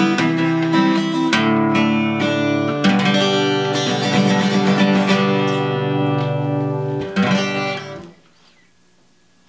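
Acoustic guitar strummed, chords changing every second or so. A last strum about seven seconds in rings out and fades away.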